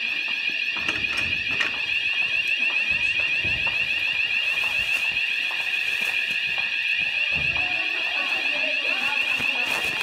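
Tyco fire alarm sounder going off continuously: a steady, high-pitched alarm tone that does not break.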